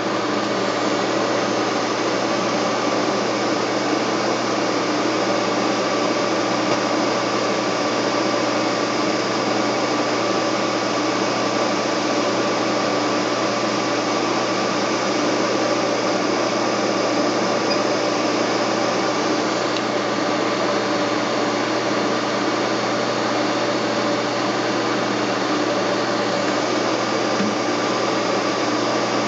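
Milling machine spindle running steadily at speed: a constant motor hum and whine with several steady tones.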